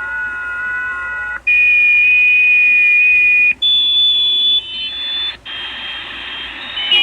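An unidentified signal heard over a ham radio receiver: a run of steady electronic tones, each held for a second or two before jumping to a new pitch, with short breaks between the steps.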